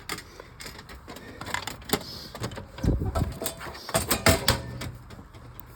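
Drinks vending machine sale: clicks and clinks of coins going in and buttons being pressed, then a heavy thud about three seconds in as the bottle drops into the tray, followed by more knocks and clatter as it is taken out. A faint low hum of the machine is heard near the end.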